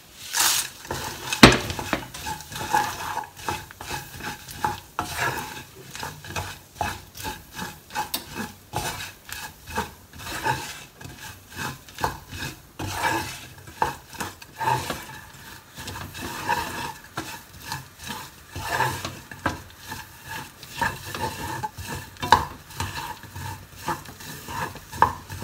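Wooden spatula stirring roasted soybeans through sizzling brown-sugar syrup in a saucepan: quick, irregular scraping and clicking of beans and spatula against the pan. A sharp clatter about a second and a half in as the beans are tipped into the pan.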